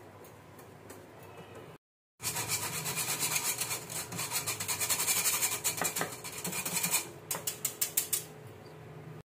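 Wire balloon whisk scraping against a stainless steel mesh sieve, working flour through it. The scraping comes in fast, rhythmic strokes starting about two seconds in, and ends in a run of separate strokes near the end.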